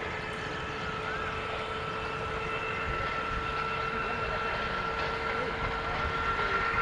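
Indian Railways diesel locomotive running: a steady engine rumble with a high whine held throughout, growing slightly louder toward the end.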